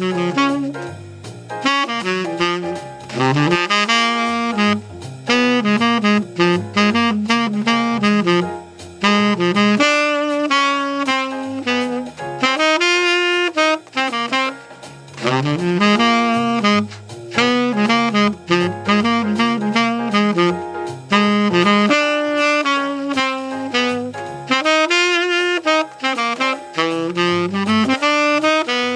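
Tenor saxophone playing a fast jazz solo: long flowing lines of notes broken by short pauses between phrases.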